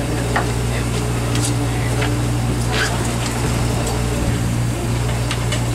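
Steady low drone of a party fishing boat's machinery, one constant hum, with a few short clicks and knocks scattered over it.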